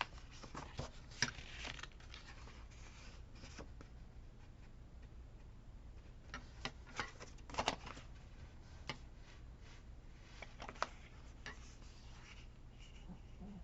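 Paper crafting sounds: sticker sheets and paper rustling as they are handled, with scattered light taps and clicks in two short clusters and a few single ones later.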